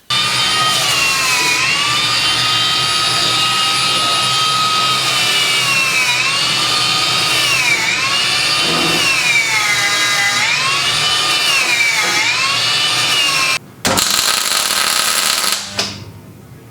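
A high-speed electric power tool running with a loud whine, its pitch dipping and recovering every couple of seconds. It stops briefly near the end, runs again for about two seconds, then shuts off.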